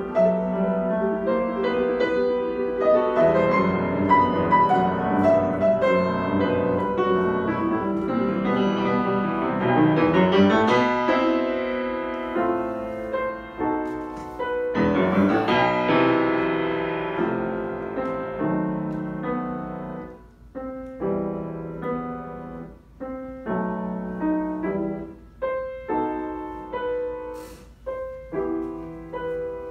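Grand piano played solo in a classical piece, with fast runs sweeping through the middle and shorter, detached notes with little gaps toward the end.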